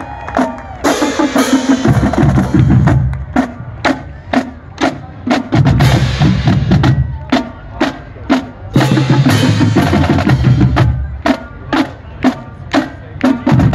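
Marching band drumline playing a street cadence: sharp strokes about twice a second over snare and tenor drumming, with stretches of bass drum runs and cymbal crashes three times.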